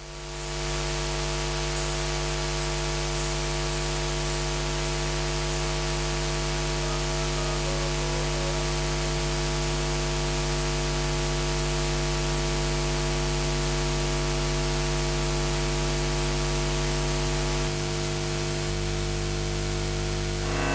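Steady electrical hiss with a mains hum and buzz from the recording or sound-system feed, no music or voice.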